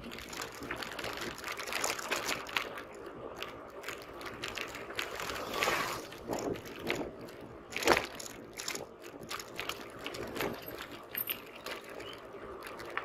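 Bicycle rattling and jolting over a paving-stone road, with wind buffeting the microphone; a sharper jolt stands out about eight seconds in.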